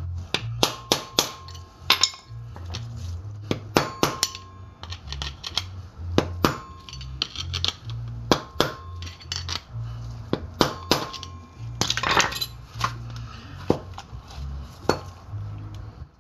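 Hammer blows knocking a steel bearing race out of the front wheel hub of a 1998 Toyota Tacoma: repeated sharp metal-on-metal strikes in quick groups of two to four, some of them ringing. The race went in the wrong way round and is being driven out to be flipped.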